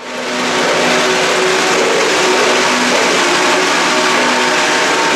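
Lionel Vision Line 49er Challenger O gauge model locomotive and its yellow cars running past on the layout track: a loud, steady rush of running noise with a few steady tones held through it, strongest over the first three seconds.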